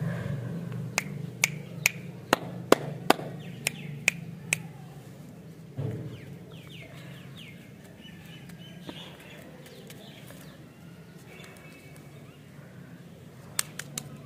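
A run of about nine sharp taps or clicks over the first four and a half seconds, then faint chirps over a steady low hum, and two more clicks near the end as a wrapped lollipop is picked up by hand.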